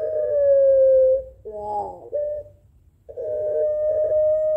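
Puter pelung (Barbary dove) giving its long drawn-out, howl-like call: a held note that sinks slightly in pitch and ends about a second in, then a short broken note, a brief pause, and another long held note from about three seconds in.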